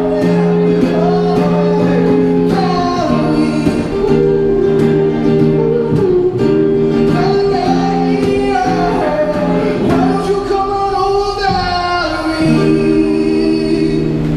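A man singing into a microphone over acoustic guitar chords, played live through a small amplifier.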